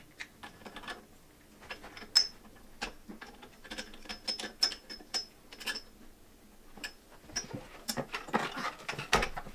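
Caster wheels clicking and knocking as they are pulled off and pushed onto the tubular metal legs of an over-bed table, some clicks with a short metallic ring. Near the end comes a rustle and a single thump as the table is turned over and set down.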